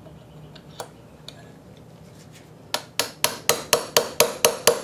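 Ball-peen hammer tapping a steel pin punch, driving a stuck pin out of an engine part that sits on a steel bench block. About halfway in, a fast, even run of sharp metallic strikes begins, about four a second.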